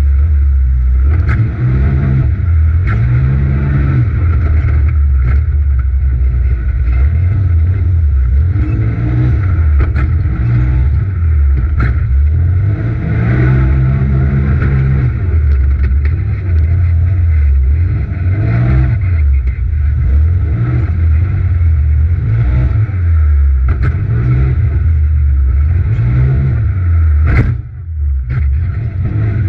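The turbocharged twin-cylinder engine of a Polaris RZR XP Turbo side-by-side, heard from inside the cab while racing, its pitch climbing and falling again and again as the throttle opens and closes. A few sharp knocks cut through, with one loud crack shortly before the end and then a brief dip in the engine sound.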